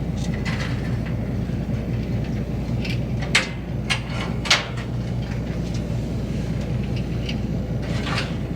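A boat's engine running with a steady low hum, with two sharp knocks about three and a half and four and a half seconds in, and a few fainter clicks.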